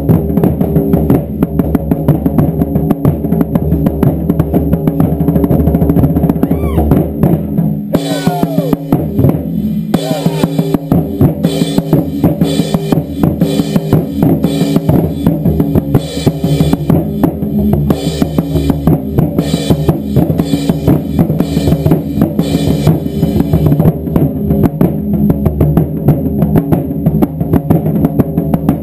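Taiko drum ensemble playing a loud, driving beat, many drums struck in a fast, steady rhythm. For much of the middle, sharper, brighter strokes join in over the deep drum hits.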